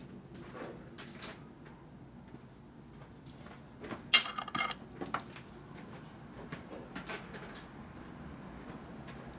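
Metal hand tools clinking against each other and on a steel workbench: a few short, ringing metallic clinks, the loudest cluster about four seconds in.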